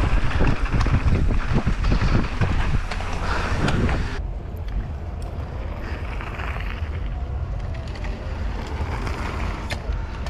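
Mountain bike running down a dirt trail: wind buffeting the microphone over tyre noise and the clatter of the bike, with rapid knocks and rattles. After about four seconds it turns quieter and smoother.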